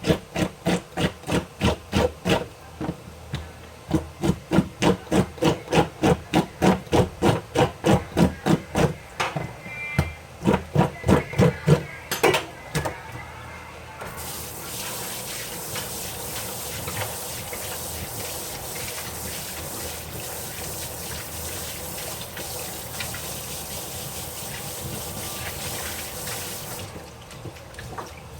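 Rhythmic strokes, about three a second, for the first twelve seconds or so. Then water runs steadily with a dense hiss for about thirteen seconds and stops.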